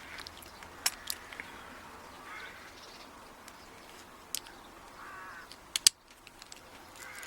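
Scattered small metal clicks and taps from a plug follower being worked against a padlock core to push it out; the core is sticking. The loudest is a close pair of clicks near six seconds in.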